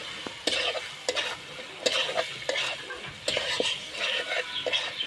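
Metal spatula stirring and scraping chicken masala around a black iron kadhai, with irregular scrapes and knocks against the pan over the food sizzling.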